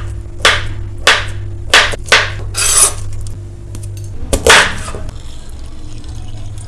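Steel knife slicing a boiled potato on a wooden chopping board, about six crisp cuts each ending in a knock on the board. Then a lemon is handled on the board, with one louder, longer stroke a little after four seconds, followed by quieter handling.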